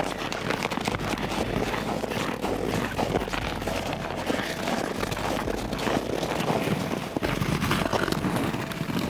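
Footsteps crunching through frozen snow and dry brush, a dense, irregular run of crunches and crackles.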